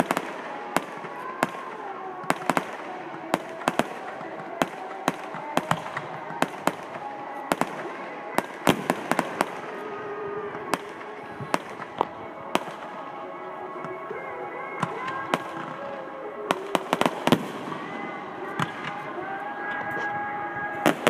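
Fireworks display: aerial shells and multishot effects firing and bursting, a long irregular string of sharp bangs, often several to a second.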